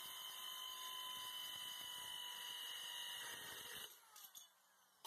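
Compact circular saw's electric motor and blade running with a steady whine. It is switched off about four seconds in, and the pitch falls as the blade spins down.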